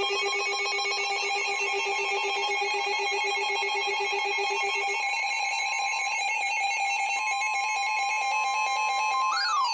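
Electronic weather-radio alert tones: a rapid, ringer-like trill of several tones. A steady high alarm tone comes in about seven seconds in, and a short rising-then-falling glide follows near the end. This is the alert signal that precedes a severe thunderstorm warning broadcast.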